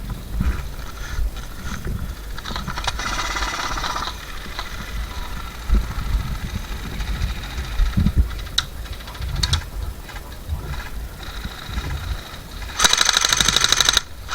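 Airsoft rifle firing on full auto: a fainter rattling burst about three seconds in, then a loud, very rapid burst near the end that breaks off briefly and starts again. Low thumps and rumble on the microphone run beneath.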